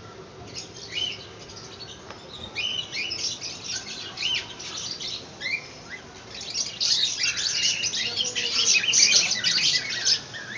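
Many small caged pet birds chirping together, short overlapping calls that grow busier and louder about two-thirds of the way through.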